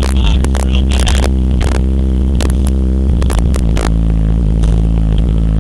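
Four Earthquake 12-inch car subwoofers playing loud deep bass inside an SUV, with low notes held and changing to a new note a little past halfway. Short buzzing rattles run over the bass throughout.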